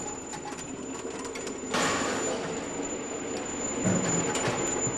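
Vibratory feeder pans of a linear weigher running, steel bolts rattling and clattering along the metal troughs. The rattling gets louder about two seconds in, and a few knocks come near the end.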